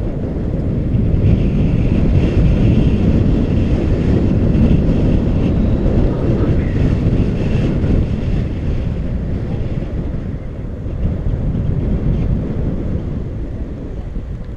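Wind buffeting a GoPro action camera's microphone on a moving bicycle: a steady low rumble that swells in the first half and eases a little later on.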